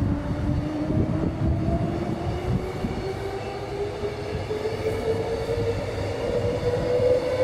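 Electric multiple-unit passenger train running past, its traction motors giving a whine that rises steadily in pitch as it picks up speed, over a low rumble.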